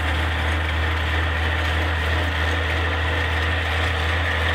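Farm tractor's diesel engine running steadily under load as it works the field with a rear-mounted tillage implement: a constant low drone with a faint steady whine above it.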